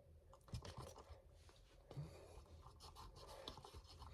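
Near silence with faint scratching and a few light clicks and taps.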